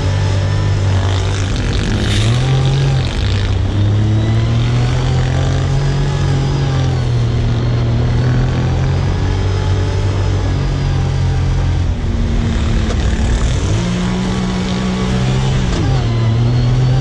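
Side-by-side UTV engine running as the vehicle drives over sand dunes, its pitch rising and falling with the throttle.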